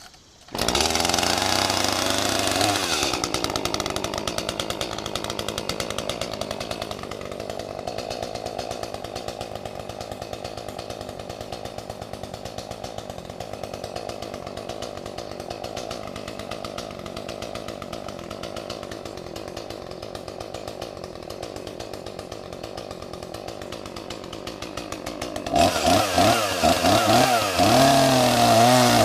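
Gas chainsaw starting up about half a second in and running fast for a couple of seconds. It then settles to a steady idle. Near the end it is throttled up hard, with the pitch wavering up and down.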